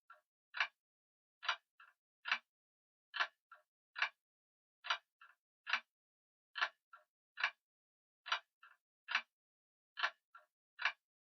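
Grandfather clock ticking in a steady tick-tock, a sharp tick slightly faster than once a second, every other tick followed by a fainter, softer click.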